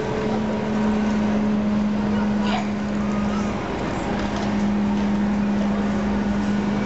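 Street ambience: a steady low engine-like hum over a constant wash of traffic noise, with distant voices.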